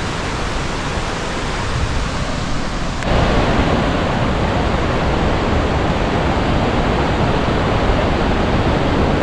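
Loud, steady rushing water, with no pitch or rhythm, jumping louder about three seconds in.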